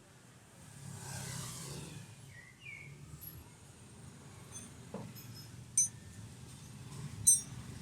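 Steady low traffic hum, with a vehicle passing about a second in, a short chirp, and two sharp clicks, the louder one near the end.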